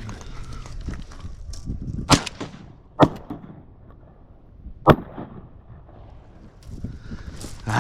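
Three shotgun shots fired at ducks, the first two about a second apart and the third, loudest, about two seconds later, over steady wind noise.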